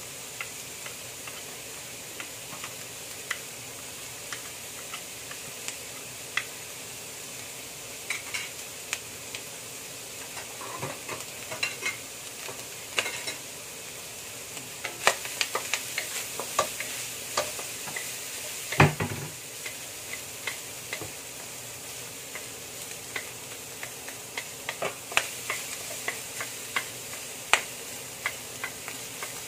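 Ground meat sizzling in hot oil in a wok as a wooden spatula stirs and scrapes it, with frequent sharp clicks and taps of the spatula on the pan. There is one louder, duller knock about two-thirds of the way through.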